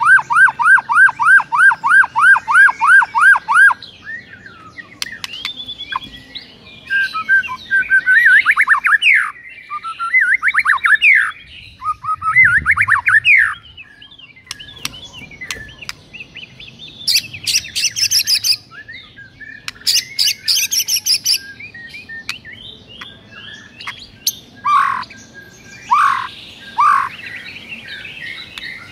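White-rumped shama singing a varied song: a fast run of repeated rising notes, about four a second, for the first few seconds, then mixed whistles and chirps. Two harsh buzzy bursts come a little after the middle, and a few sharp short notes near the end.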